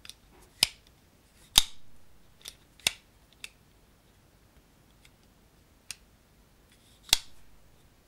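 Buck Alpha Hunter lockback folding knife having its blade opened and closed by hand, giving a string of sharp metallic clicks and snaps at uneven intervals as the blade locks open and snaps shut. The loudest snaps come about half a second, a second and a half, three seconds and seven seconds in.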